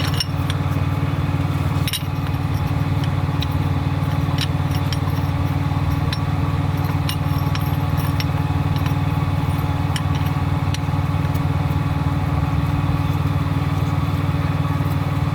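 A steady low engine drone, like an engine idling close by, with scattered light metal clicks and taps from work on the brake caliper as its piston is pushed back.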